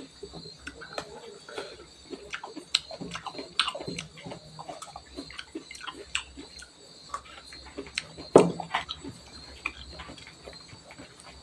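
Close-miked chewing and wet mouth sounds of someone eating rice and greens by hand: irregular smacks and clicks, the loudest about two-thirds of the way in. A faint steady high-pitched tone sits in the background.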